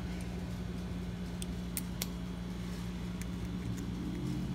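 A few scattered light metallic clicks of a key and an old rusty American padlock being handled, over a steady low hum.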